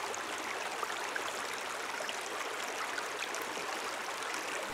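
Shallow creek flowing steadily over a pebble bed: a steady rush of water with little low rumble.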